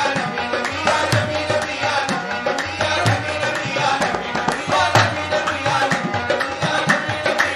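Qawwali music: tabla drumming a fast, steady rhythm over sustained harmonium tones.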